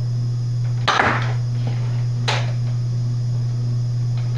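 Two sharp clacks from a Zuru X-Shot foam-dart blaster being worked and fired, about a second and a half apart, the first with a dull thump under it, over a steady low hum.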